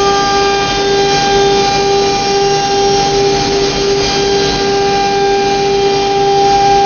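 CNC router spindle running with a steady high whine while its bit routes panel grooves into a wooden door board, with a hiss of cutting noise beneath the whine.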